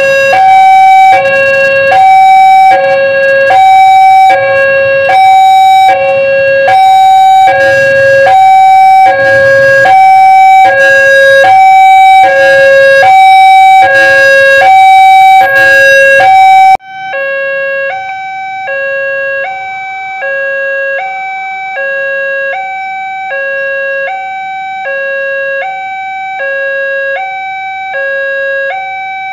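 Electronic warning alarm of an Indonesian railway level crossing, sounding its alternating high-low two-tone chime at about one pair a second: the signal that a train is approaching and the gates are closing. Roughly two-thirds of the way through it cuts suddenly to a quieter crossing alarm with the same two-tone pattern.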